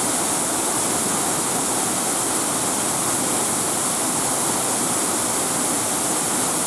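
Rushing water: a steady, even rush that cuts off abruptly at the end.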